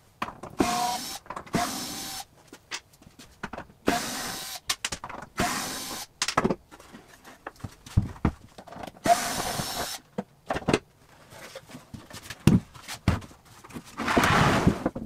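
Cordless drill-driver run in short bursts, each under a second, backing out the hinge screws as cabinet doors are taken off. Scattered knocks of wooden panels being handled follow, then a louder rushing noise about a second long near the end.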